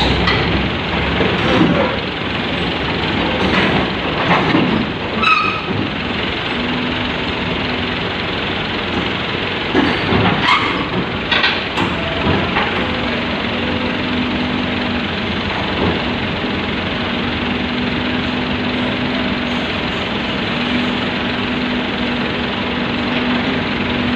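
Komatsu PC78US mini excavator running under load as it climbs onto a self-loader truck, with several sharp clanks and knocks in the first half. A steady hum sets in about six seconds in.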